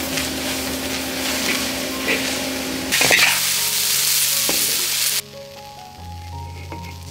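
Leafy greens sizzling hard in a hot wok while a metal spatula stirs and scrapes them, with a sharp knock of the spatula on the wok about three seconds in. The sizzling cuts off suddenly a little after five seconds.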